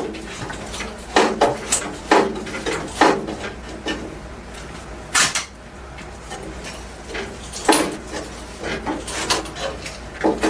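Irregular metal clanks and knocks: tools and loose sheet metal being worked, struck and set down while old floor pan metal is removed from a Karmann Ghia chassis.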